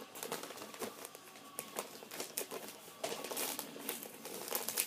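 Wrapping paper crinkling and rustling as a gift is unwrapped by hand, in irregular crackles that grow busier in the last second and a half.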